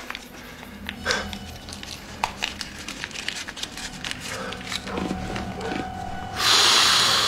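Hands handling paper at a desk: light rustling and small clicks, then a loud rasping noise lasting about a second near the end.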